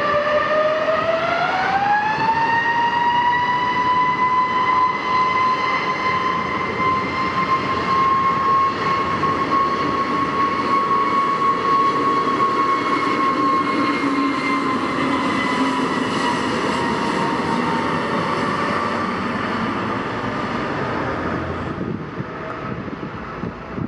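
Jet airliner's turbofan engines spooling up to high thrust. Their whine rises quickly in pitch during the first two seconds, then holds steady with a broad rushing roar underneath. From about fourteen seconds in, the whine slowly drops in pitch and fades.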